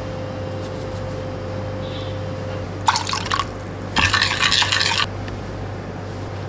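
Metal spoon stirring a thick spice-and-oil marinade in a bowl, scraping and splashing in two short bursts about three and four seconds in, over a steady low hum.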